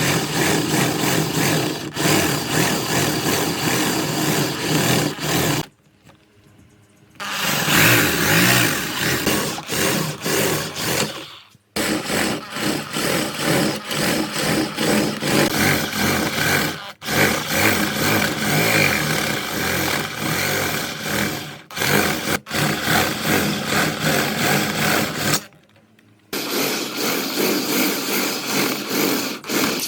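Woodworking power tools running on wood, in several stretches that stop abruptly for short gaps.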